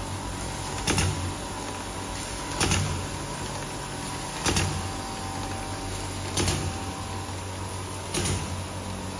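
Bottle packaging line machinery running: a steady low hum with a sharp clack repeating about every two seconds as a machine on the line cycles.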